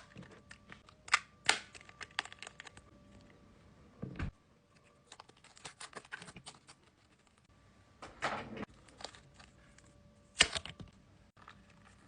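Irregular clicks and taps of small objects and packaging being handled, with a few louder knocks and short rustles, over a faint steady hum.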